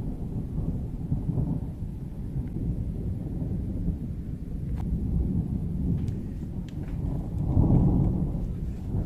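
Thunder rumbling low and continuously during a thunderstorm with lightning almost every second, swelling louder near the end.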